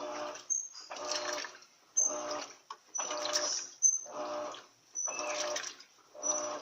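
Top-loading turbo washing machine (13 kg LT13B) agitating a load of bed linen in the wash cycle. Its agitator swishes the water back and forth about once a second, each stroke a short humming, splashing churn with a brief pause between, and some strokes start with a short high squeak.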